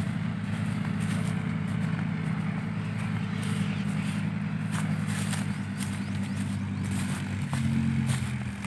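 Heavy diesel engine of an earthmoving machine running steadily under light load, its note shifting up a little about three quarters of the way through, with occasional faint scrapes.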